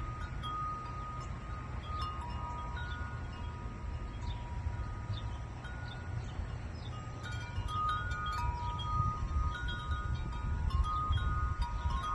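Wind chimes ringing, several long-ringing tones struck irregularly and overlapping, growing busier in the second half, over a steady low rumble.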